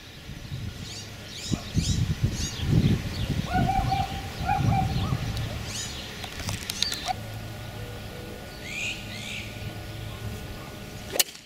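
Small birds chirping and twittering, with two short, lower held calls around the middle, over a low rumble of wind on the microphone. Near the end there is one sharp click, the strike of a 9-iron on a golf ball.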